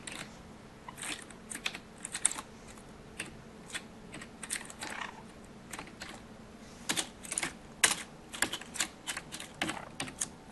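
Typing on a computer keyboard: irregular runs of key clicks, busier in the second half.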